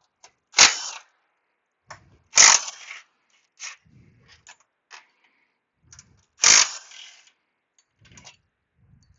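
Cordless impact wrench on a socket extension hammering in three short bursts, breaking engine mount bolts loose, with small clicks and knocks of tools between the bursts.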